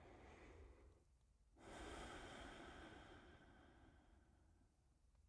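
A person taking slow, deep, faint breaths, the conscious breaths of a yoga relaxation. One breath ends about a second in, and another starts a moment later and slowly fades away.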